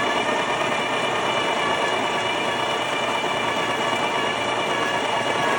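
Electric espresso bean grinder running steadily, grinding coffee beans into a portafilter held in its holder: a dense grinding noise over a constant motor whine.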